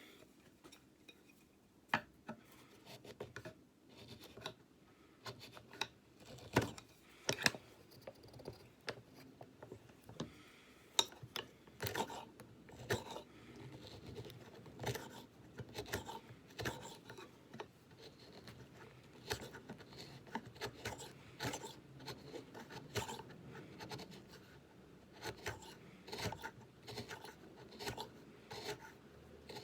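Hand chisel paring away excess oak on a small turned knob: irregular short scraping cuts with sharp clicks, one after another.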